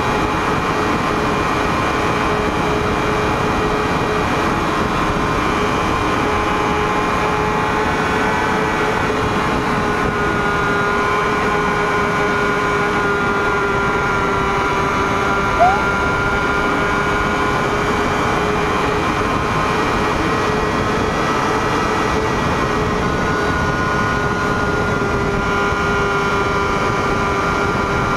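Honda CBR1000RR inline-four engine running hard at nearly constant high revs in a high gear, heard from the rider's position with wind rush over the fairing. A brief chirp cuts in once about halfway through.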